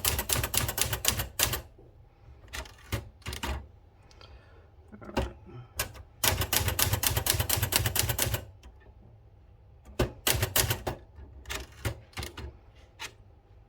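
1970 Citizen X3 manual typewriter being typed key by key, each typebar striking with a sharp clack. The strikes come in quick runs of many keys and shorter groups with brief pauses between.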